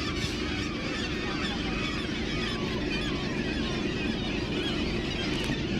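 Seabird colony on rock cliffs: many birds calling at once in a dense, overlapping chorus of short squealing calls, over a steady low rumble.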